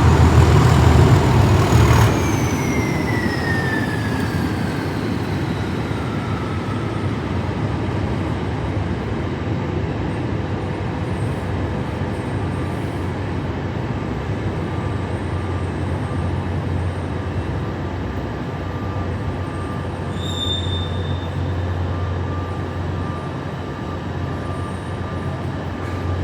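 English Electric Class 37 diesel locomotive with its V12 engine pulling away: engine noise and turbocharger whistle, loudest at first. After about two seconds the whistle falls steadily in pitch as the locomotive draws away, leaving a steady low rumble. A brief high-pitched tone sounds about twenty seconds in.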